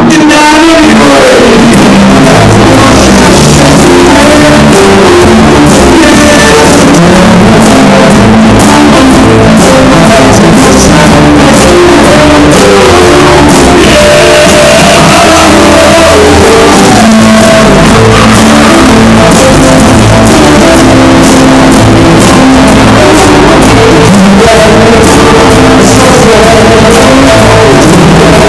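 Rock band playing loud, heavily saturated music with electric guitar, bass and drums, and no vocals; a falling pitch glide sounds just after the start.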